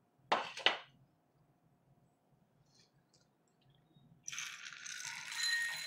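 Two sharp plastic knocks as the hot-air snack maker's clear cover is handled, then from about four seconds in a dense, dry rattle of roasted chickpeas tipping out of the machine's roasting chamber into a bowl, the sign that the batch is roasted dry and done.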